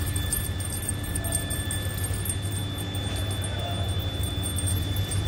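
A steady low hum, with two faint, steady high-pitched whines and light scattered ticks over it.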